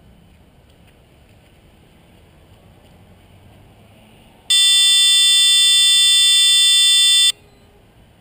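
3DR Iris+ quadcopter's onboard buzzer sounds one loud, steady beep of about three seconds, starting around halfway in and cutting off sharply. This is the tone the flight controller plays as the motors are armed, just before they spin up.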